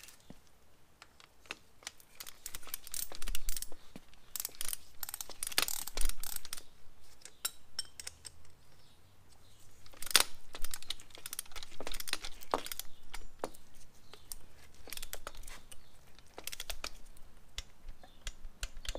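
Irregular metallic clicks and clinks of a hand wrench and loose steel hardware on an aftermarket upper control arm as its cross-shaft bolts are aligned and tightened. The sharpest knocks come about six and ten seconds in.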